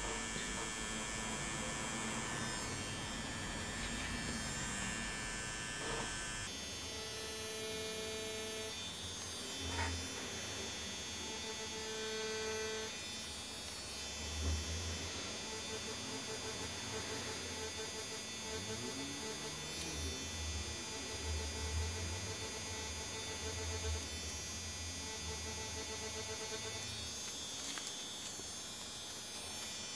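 DragonHawk Mast Archer wireless rotary tattoo machine running with a steady hum as it lines fake skin, set to 8.2 volts, a speed the tattooist judges nice by its feel and sound.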